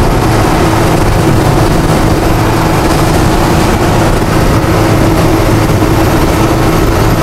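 Steady engine and road noise heard from inside a vehicle's cab at highway speed: a constant low rumble with a steady hum.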